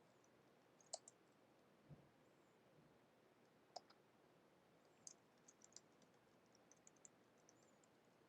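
Faint, scattered computer mouse clicks, a dozen or so, bunched more closely in the second half, against near silence.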